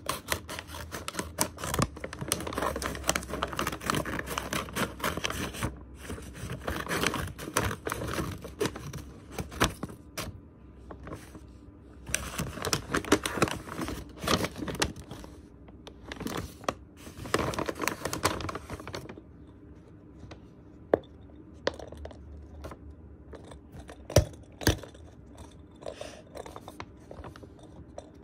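Paper envelope rustling and crinkling as a hand rummages inside it, in two long stretches. After that comes quieter handling with a few sharp clicks.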